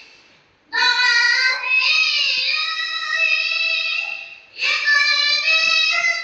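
A single high voice singing a naat unaccompanied, in long held, ornamented lines. It breaks off for a breath about half a second in and again near four and a half seconds.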